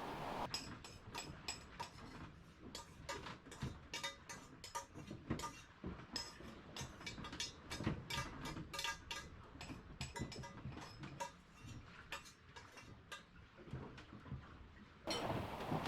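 Dishes and cutlery clinking and clattering, a quick irregular run of small knocks, some of them ringing briefly. A louder steady rush of noise comes in about a second before the end.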